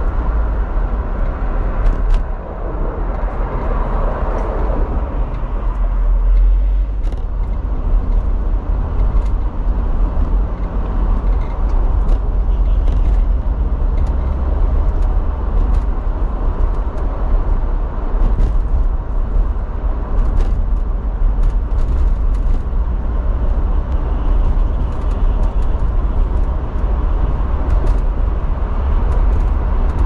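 Steady road noise heard inside a car at freeway speed: a deep rumble of tyres and engine. There is a brief swell a few seconds in, and small clicks come now and then.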